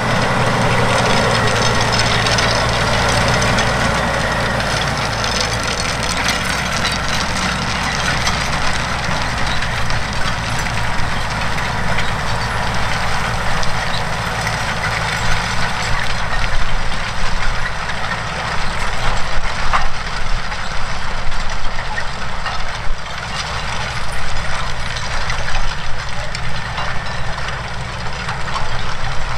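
Claas Xerion 12.650 tracked tractor's big diesel engine running steadily while it pulls a Kelly chain disc harrow, with the rattle of the harrow's chains and discs in the soil. It fades as the rig moves away.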